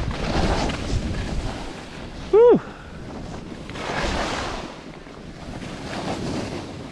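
Wind buffeting an action camera's microphone while skiing downhill, with the rushing hiss of skis on snow swelling and fading with each turn. About two and a half seconds in, one brief loud squeak rises and falls in pitch.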